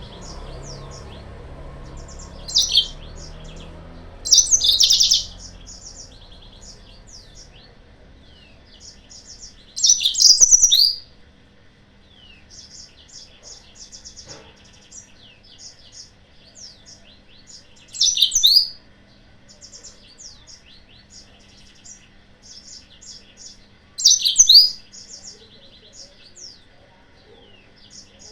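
Yellow-fronted canary (Mozambique canary) singing: five loud bursts of rapid trilled and sweeping high notes, spaced a few seconds apart, with softer twittering between them.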